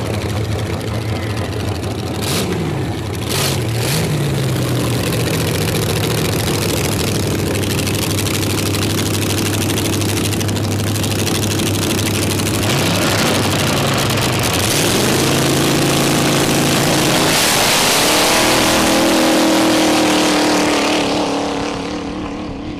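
Twin-engine dragster's two engines on open zoomie headers, running with a few quick throttle blips, then revved hard through a smoky burnout. The sound swells for several seconds and fades near the end as the car pulls away.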